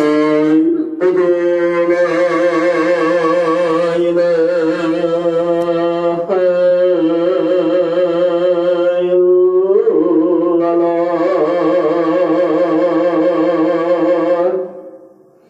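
Background track of a solo voice chanting melodically: long held notes with strong vibrato in three or four phrases with short breaks between them, fading out near the end.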